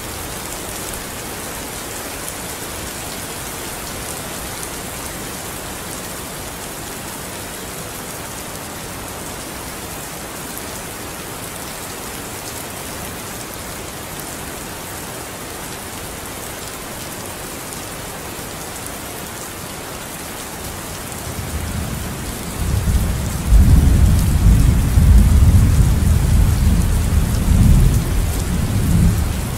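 Steady hiss of rain, joined about three quarters of the way in by a low rolling rumble of thunder that swells and runs on for several seconds.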